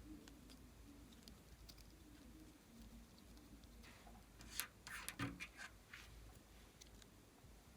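Glossy slime being worked by hand, giving faint sticky clicks and crackles, with a louder cluster of pops about four to five and a half seconds in.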